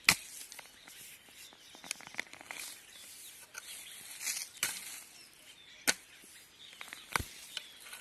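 Digging in earth to lift out a clump of hill turmeric: about half a dozen sharp, irregular strikes and scrapes of a tool into the soil, the loudest right at the start, with soft rustling of dirt and leaves between.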